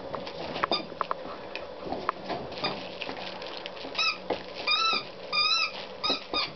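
Pomeranian puppies at play: scattered small clicks and taps in the first half, then a run of short, high-pitched yips and squeals from about four seconds in, five or six in quick succession.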